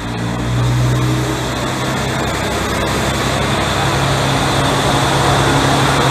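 Diesel railcar pulling away from the platform, its engine working under power with a steady low drone that gets louder about a second in, while noise of the moving car builds toward the end.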